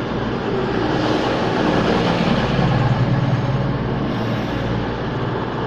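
CrossCountry Voyager diesel-electric multiple unit at the station, its underfloor diesel engines running with a steady, even drone.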